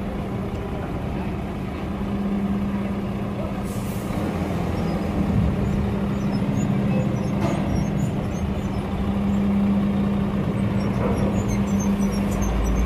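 Heavy diesel truck engine running with a steady low hum, and a short hiss of air brakes about four seconds in.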